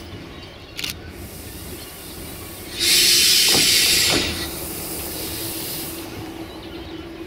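Duewag-built DB Class 628 diesel railcar running in slowly, with a steady drone, a single click just before a second in, and a loud hiss about three seconds in that lasts over a second before dropping to a softer hiss that fades out.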